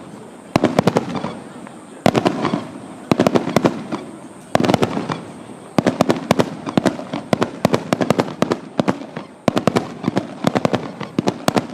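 Fireworks going off in quick succession: dense clusters of sharp bangs and crackles, a new cluster about every second.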